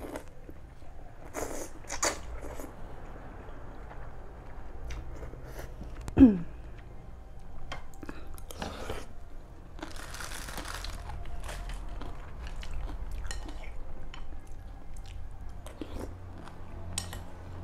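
Close-up eating sounds of a bowl of boat noodle soup: noodles and broth slurped in several short pulls, with chewing and small mouth clicks between. About six seconds in comes one loud, short sound that falls quickly in pitch.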